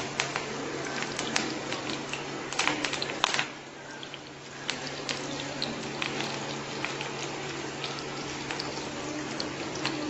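Chopped onion and curry leaves sizzling and crackling in hot coconut oil in a frying pan, with irregular sharp pops over a steady sizzle and a denser burst of crackling about three seconds in. A low steady hum runs underneath.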